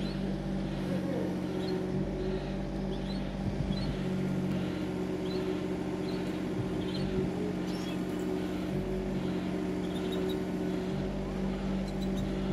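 Mini excavator's diesel engine running steadily at a constant pitch.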